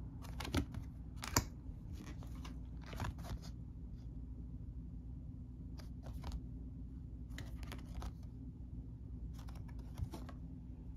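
Stiff coated-card map tiles being handled and flipped over: short, scattered scrapes and flaps of card against card and fingers, coming in small clusters every second or two over a low steady room hum.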